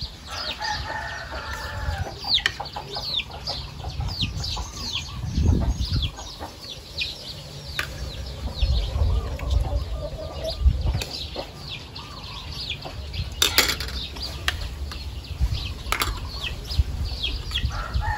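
Chicks peeping nonstop in quick, high, falling chirps, with a hen clucking now and then. A couple of sharp clinks of spoons on plates stand out late on.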